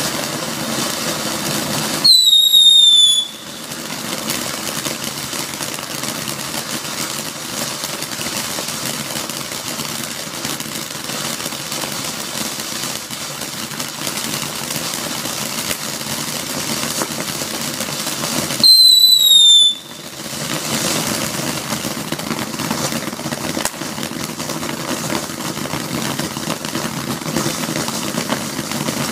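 Legend Fireworks 'Passion and Fire' ground fountain burning with a steady hissing spray and crackling sparks. Twice, about two seconds in and again about two-thirds of the way through, a loud whistle sounds for about a second, falling slightly in pitch.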